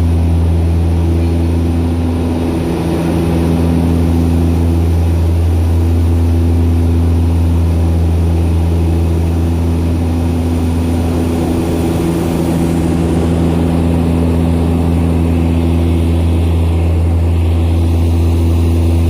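Propeller aircraft engine running steadily at a constant pitch, with no change in speed.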